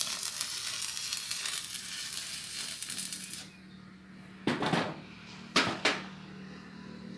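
Stick-welding arc crackling and sizzling as a build-up bead is run, stopping about three and a half seconds in. Three short knocks follow over a steady low hum.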